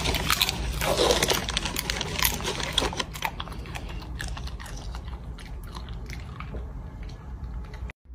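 Bull terrier chewing a dried apple chip: a run of crisp crunches, thick in the first few seconds and thinning out as it goes, until the sound cuts off near the end.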